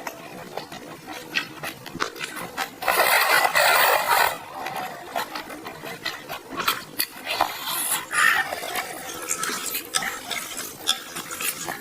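Mukbang eating sounds of juicy rice noodles: one long, loud slurp about three seconds in, with wet chewing, smacks and small mouth clicks through the rest.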